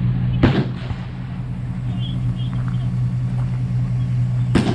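A motor vehicle engine running steadily with a low hum, broken by two sharp cracks, one about half a second in and one near the end.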